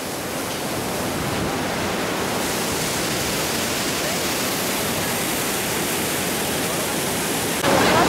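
A mountain river rushing over rocks and rapids: a steady, even noise of churning water that gets louder just before the end.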